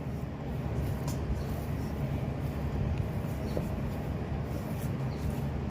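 A steady low machine-like hum and rumble, with a few faint light ticks.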